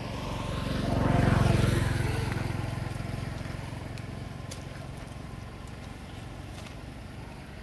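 A motor vehicle driving past, loudest about a second in and then slowly fading away, its engine note dropping as it goes by.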